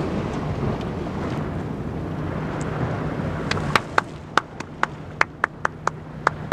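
Wind buffeting the microphone with surf washing on the rocks, then, from about three and a half seconds in, a run of about a dozen sharp hand claps at roughly three a second.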